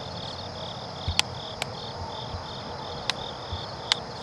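Insects chirping in an even rhythm, about three chirps a second, over a steady outdoor hiss. A few sharp clicks stand out above it, twice close together about a second in and again near the end.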